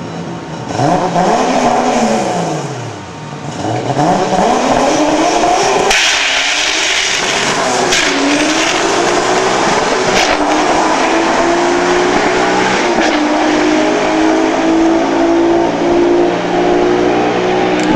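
A 1990s Toyota Supra drag car, running without nitrous, revs up and down twice at the line, then spins its tyres and accelerates hard down the strip. The engine pitch climbs and drops back at each gear change, twice.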